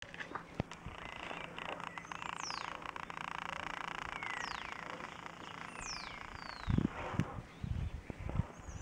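Small birds chirping: several short, high calls that slide down in pitch, over a steady hiss. A few dull thumps come near the end.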